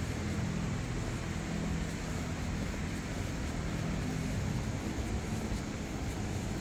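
Steady street noise with a low engine hum from road traffic.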